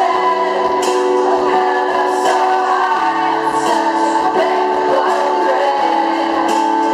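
Live rock band with electric guitars, drums and keyboards playing, with singing over it, recorded loud from within the crowd. The held chords change about every three seconds.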